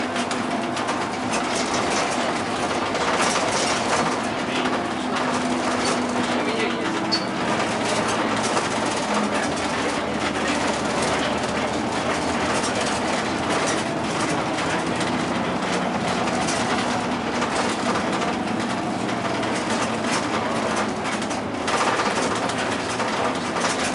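Inside a bus under way: the engine drones steadily under road and tyre noise, its pitch stepping a few times, with light rattling from the cabin.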